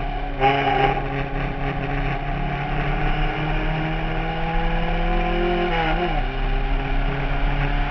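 Fiat 124 race car's four-cylinder engine heard from the open cockpit under racing load. Its pitch jumps up about half a second in, climbs slowly, drops sharply at about six seconds, then climbs again.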